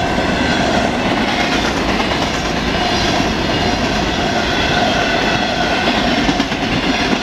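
Freight train cars rolling past close by, with a steady, loud rumble and wheels clattering over the rail joints. Several high steady tones ring faintly over the rumble.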